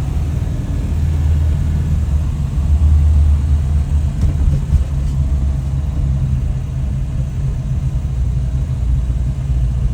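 1965 Volvo 122S's four-cylinder engine running as the car drives slowly, heard from inside the cabin as a steady low rumble that swells slightly about three seconds in.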